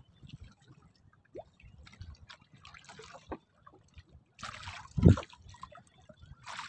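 Water dripping and trickling off a wet fishing net as it is hauled by hand into a bamboo outrigger boat, with scattered small ticks. A dull thump about five seconds in is the loudest sound.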